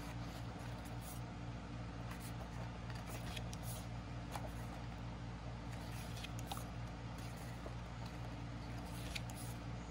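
Pages of a glossy photobook being handled and turned, giving faint scattered paper rustles and soft clicks over a steady low hum.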